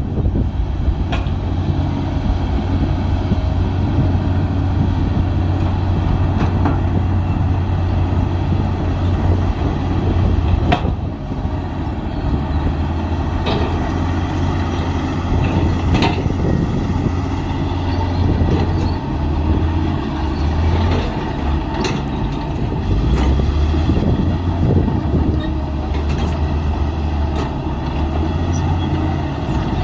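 Komatsu D53P bulldozer's diesel engine running steadily under load, its low drone shifting a little in pitch, with a scattering of sharp clanks.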